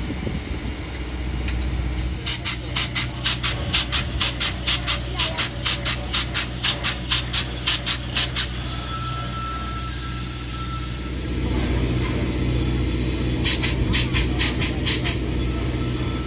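Reading & Northern 2102, a 4-8-4 steam locomotive, giving off a steady run of sharp steam beats, about two or three a second. The beats stop about halfway through, and near the end a low rumble rises and the beats start again.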